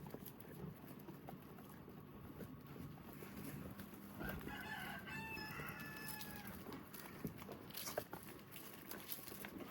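A rooster crowing once: a single drawn-out pitched call of about two seconds that holds steady and falls slightly near its end, starting about four seconds in.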